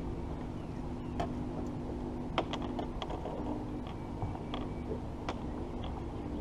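Scattered sharp clicks and light knocks as a bass is lifted out of the water by hand and handled on a boat deck, over a steady low hum.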